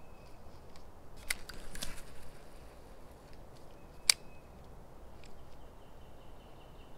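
Sharp clicks and knocks from fishing tackle and kayak handling: a short cluster of clicks and rattles a little over a second in, then one loud, sharp click about four seconds in.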